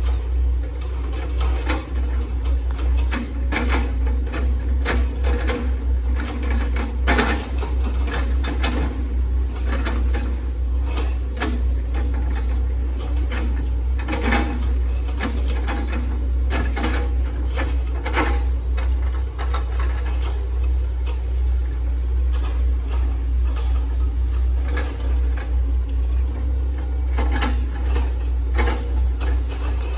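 Hitachi ZX110 MF excavator's diesel engine running with a steady low rumble, with frequent irregular cracks and knocks as the machine chops through oil palm trunks.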